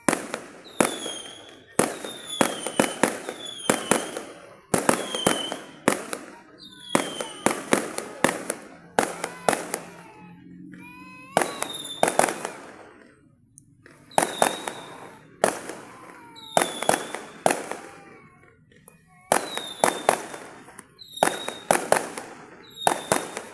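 Aerial fireworks bursting in a rapid barrage: clusters of sharp bangs every one to two seconds, many opening with a short falling whistle.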